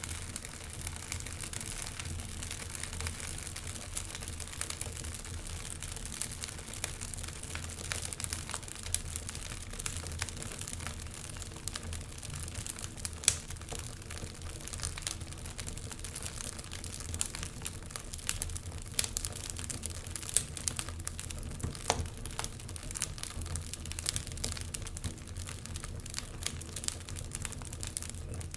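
Fire crackling in a fireplace: a steady stream of small pops and snaps over a low, steady rumble, with a sharper pop about 13 seconds in.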